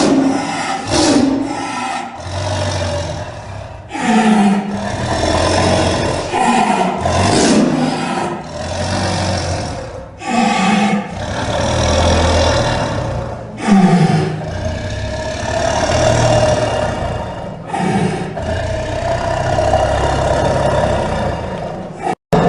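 Tiger roaring and growling: a dozen or so loud, deep roars and snarls in quick succession, each a second or two long, cut off briefly near the end.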